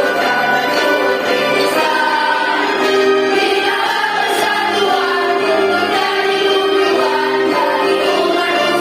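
Choir of school students singing a march song together, with held notes and sustained low instrumental chords underneath.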